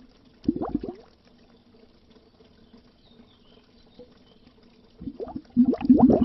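Air bubbles gurgling underwater, coming in bursts of short rising blips: a brief burst about half a second in, a lull of several seconds with only faint bubbling, then steady loud bubbling again near the end.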